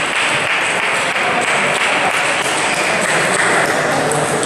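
Applause and clapping echoing in a large sports hall, a steady dense patter that sets in as a table tennis point ends.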